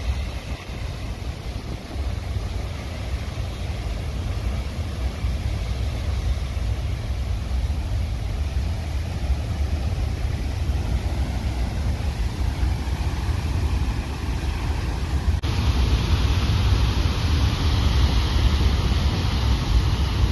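Water released through a dam's outlet gates, jetting out under pressure as a steady roaring rush with a deep rumble beneath. About fifteen seconds in, the sound changes abruptly to a brighter, louder hissing spray.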